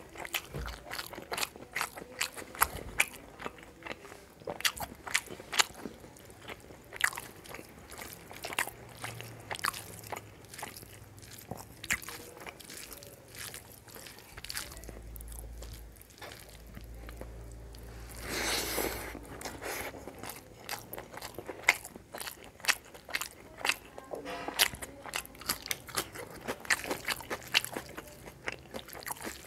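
Close-miked chewing and crunching of a mouthful of rice and paneer curry eaten by hand, a dense run of wet smacks and crunchy clicks. A short rushing noise comes about two-thirds of the way through.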